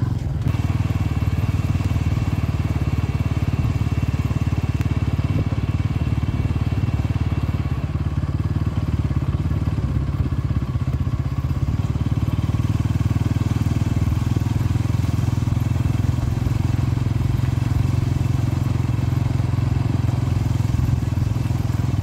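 Motorcycle running steadily at riding speed: a constant engine drone and rumble that holds even throughout.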